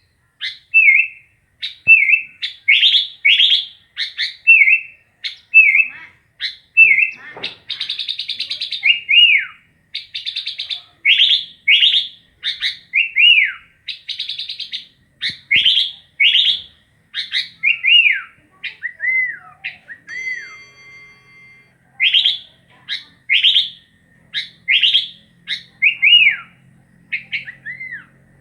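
Sooty-headed bulbul (kutilang) calling and singing: a steady string of short, clear chirps and slurred notes, with a couple of harsher buzzy notes mixed in and a brief steady tone about two-thirds of the way through.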